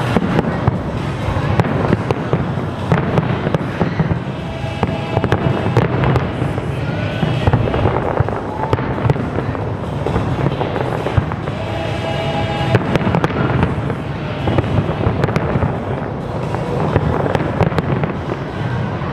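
Large aerial fireworks display going off nonstop: dense, overlapping bangs and crackling shell bursts with no pause.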